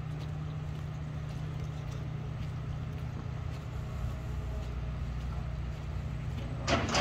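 An engine idling with a steady low hum. About a second before the end, a loud burst of sharp taps and clatter comes in over it.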